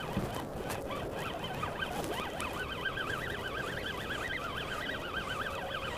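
Feeder spinning reel being wound in steadily to retrieve a hooked fish, its winding whine wavering up and down in pitch.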